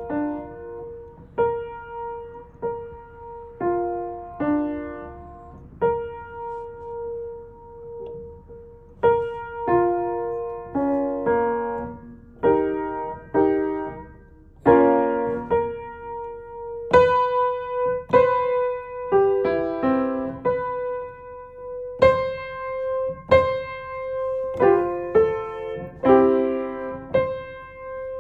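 Piano keys struck one at a time by a toddler exploring the instrument: one note near the middle of the keyboard comes back again and again, with other single notes and small clusters added at uneven times, each left to ring and fade. The strikes turn harder and brighter in the second half.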